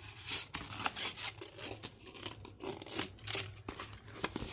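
Rustling, scraping and light clicks of paper and plastic being handled as a K-pop album's packaging and inserts are gone through by hand.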